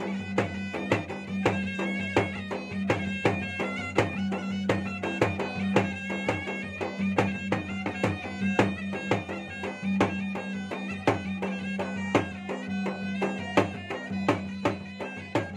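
Makassarese gendang drumming: two double-headed drums beaten in a fast, dense rhythm with stick and hand, while a wind pipe plays a stepping melody over a steady held low tone.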